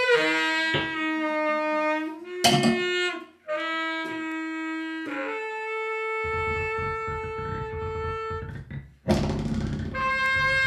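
Free-improvised music from baritone saxophone with synthesizer and turntable. Held, pitched notes break off and restart, then one long steady tone sounds over a low rumbling noise. A sudden loud, noisy burst comes near the end.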